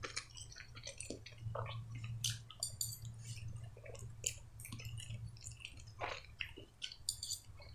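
Close-miked chewing of a mouthful of vinegret beet salad: soft, wet mouth smacks and small clicks, scattered and irregular.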